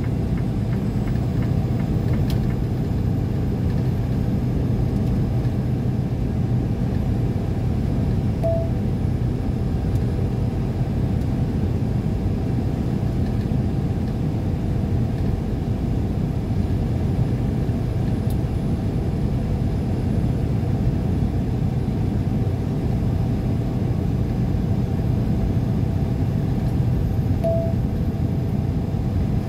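Steady road and engine rumble of a car cruising on a highway, heard from inside the cabin. Two short beeps sound, about a third of the way in and again near the end.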